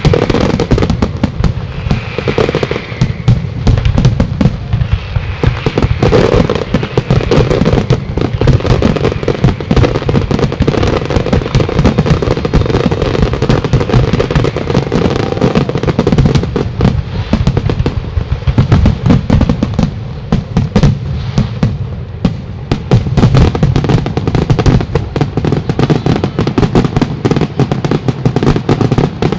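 A dense, continuous barrage of aerial firework shells bursting in rapid succession, the bangs overlapping with crackle.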